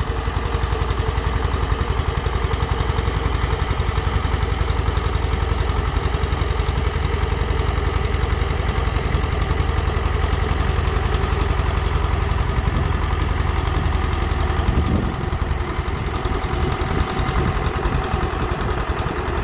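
Farm tractor engine running steadily as it pulls a potato planter across ploughed ground, its note and level dipping slightly about fifteen seconds in.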